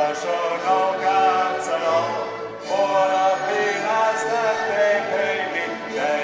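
Voices singing a slow, anthem-like karaoke song together, in long held notes, with a short break between phrases about two and a half seconds in.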